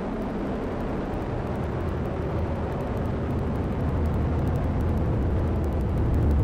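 Deep rumbling roar of the Vulcan Centaur rocket in ascent, its two BE-4 engines and two solid rocket boosters burning at full thrust, with a faint crackle, growing louder toward the end.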